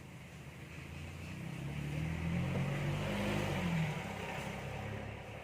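A motor vehicle's engine passing by: it grows louder, is at its loudest from about two to four seconds in, and fades again, its pitch bending as it goes.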